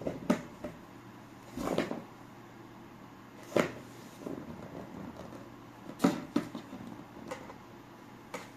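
A cat's paws and claws knocking and scratching at a cardboard box: sharp taps and short scrapes at irregular intervals, the loudest about three and a half and six seconds in.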